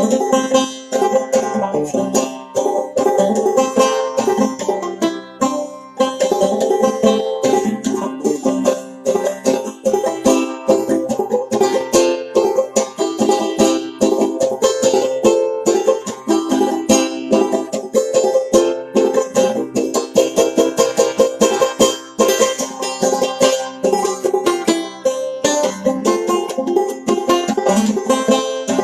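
Clawhammer banjo played solo: an old-time tune in a quick, even stream of plucked notes.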